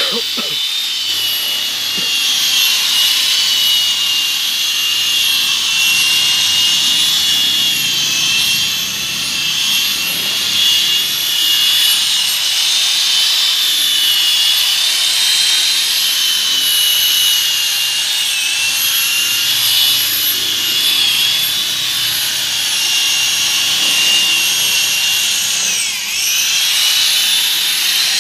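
Electric rotary car polisher running steadily with its pad pressed against a car door's paint, a loud high motor whine with a rubbing hiss, buffing out dull paint. Near the end the whine briefly drops in pitch and comes back up.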